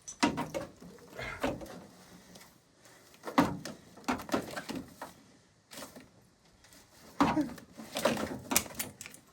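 Irregular knocks, taps and clatter of hard objects being handled and set down, in three bunches with quieter gaps between.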